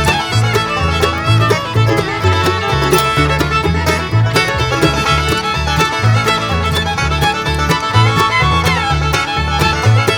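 Upbeat bluegrass background music with fiddle and banjo over a steady walking bass.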